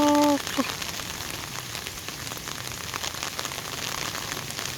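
Heavy rain falling, a dense steady hiss with many individual drops striking surfaces. A short steady-pitched tone is cut off just at the start.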